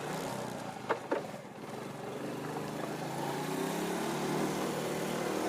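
Old Honda's engine running, its pitch climbing steadily from about two seconds in as it pulls away and gathers speed. There are two short squeaks about a second in.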